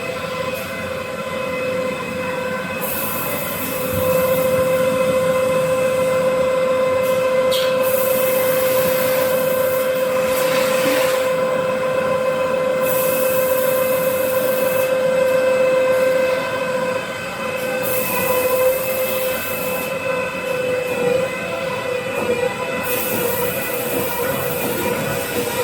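Automatic toilet paper log saw cutting machine running, with a steady whine and its overtones. It gets louder about four seconds in and drops back about twelve seconds later. A high hiss comes and goes every few seconds.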